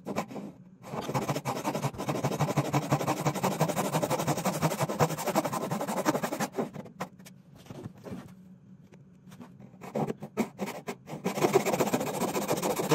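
A fine-toothed Japanese back saw cutting a walnut board at an angle, in quick, even strokes. The sawing stops for a few seconds partway through, with only a few scattered clicks, then starts again near the end.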